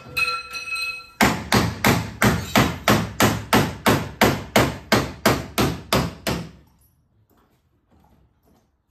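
Panel-beating hammer striking the sheet metal of a car's rear wheel arch: a steady run of about fifteen blows, roughly three a second, each ringing briefly, stopping about six and a half seconds in. A short ringing tone comes just before the first blow.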